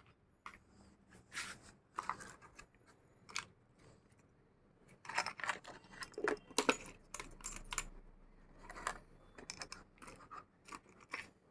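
Small hard accessories and their plastic case being handled: scattered light clicks and rattles, busiest about five to seven seconds in and again around nine seconds.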